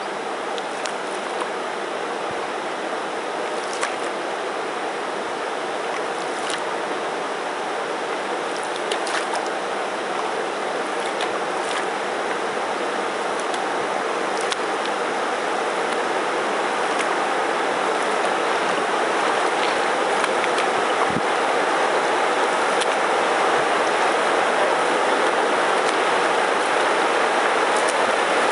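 Steady rush of water spilling over a river weir, growing gradually louder as it comes nearer, with a few faint clicks and one low knock about three-quarters of the way in.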